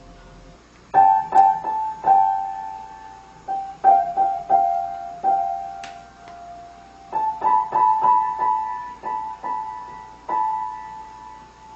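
Piano keys struck singly and in small clusters at irregular intervals, each note ringing and fading, mostly within a narrow middle range of pitches.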